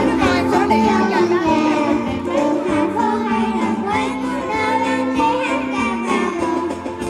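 A group of young children singing a Christmas song together over instrumental accompaniment.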